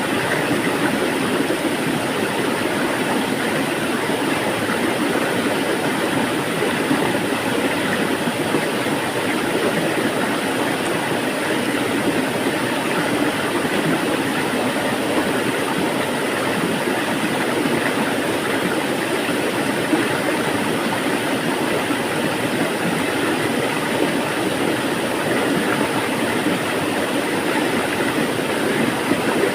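Flowing water rushing steadily, an even hiss with no changes.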